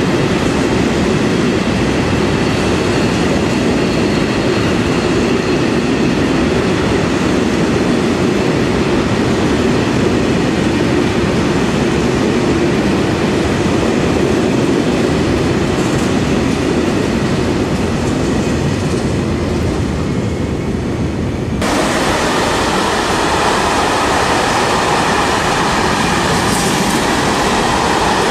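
Freight train of hopper wagons rolling past through a covered station, a steady loud rumble with wheel clatter. About 22 seconds in the sound cuts abruptly to another hopper-wagon freight train rushing past close by.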